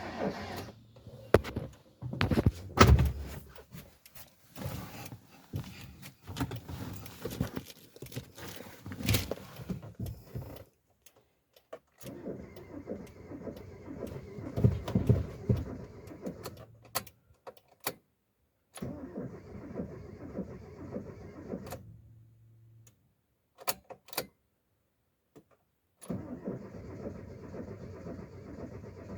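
Sharp clicks and knocks, then a Mitsubishi Lancer's engine being cranked over in three separate start attempts, each cut off suddenly: trying to start a car with a no-start fault after fresh spark plugs have been fitted.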